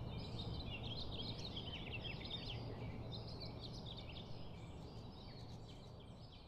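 Small birds chirping over a steady low city hum, the chirps busiest at first and the whole ambience slowly fading out.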